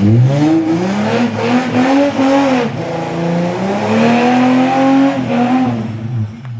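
Holden VX Commodore's 3.8-litre V6 revving under load as the car is driven off, its pitch rising and falling several times before dropping back to idle near the end. This is an engine with a knock bad enough that the owners call it finished and plan to swap it.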